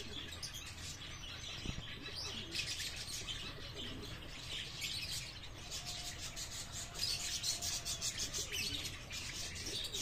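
Many birds chirping and twittering at once in a dense, continuous chorus, a little louder past the middle.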